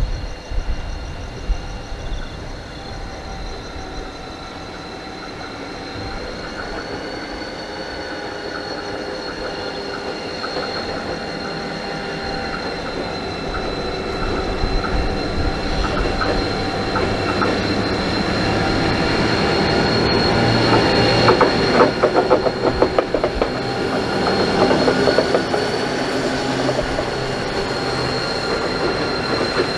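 Pacific National 81 class diesel-electric locomotive 8128, with its EMD two-stroke V12, approaching and passing. The engine grows steadily louder, a steady high wheel squeal runs throughout, and from about halfway in the wheels click rapidly over the rail joints.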